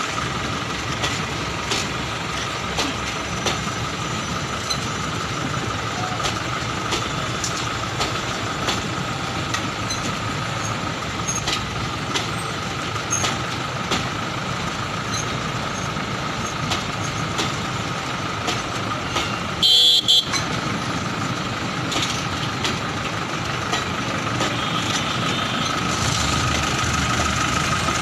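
An Indian Railways express train's coaches running past close by without stopping: steady rolling noise from the wheels on the track, with a steady high whine and irregular clicks and clatter. A short, loud horn toot sounds about two-thirds of the way through.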